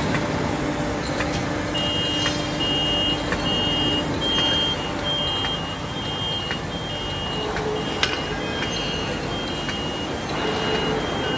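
Aluminium tube latexing and packaging machine running, a steady mechanical clatter with scattered clicks as tubes move along the conveyor. From about two seconds in, an electronic beep repeats steadily, alternating between two high pitches about twice a second.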